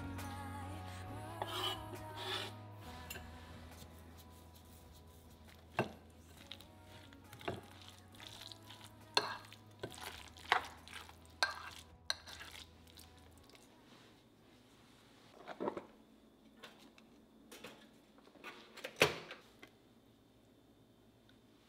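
A metal utensil clinking and scraping against a glass mixing bowl while guacamole is stirred, in scattered knocks with the loudest near the end. Soft background music fades out in the first few seconds.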